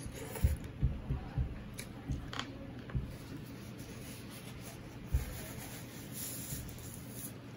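Soft low knocks of eating rice and curry by hand from a steel plate: several in the first three seconds and one more about five seconds in. About six seconds in, a paper tissue rustles as it wipes the mouth.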